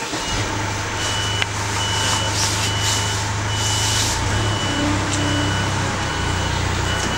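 A vehicle's reversing alarm beeping, a high tone repeating several times, over the steady low drone of its engine running.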